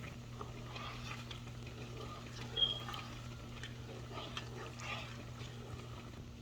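Light clicks, taps and scrapes of a utensil and containers at a pan of cream cheese sauce as cream and seasonings are added, over a steady low hum, with one brief high squeak a few seconds in.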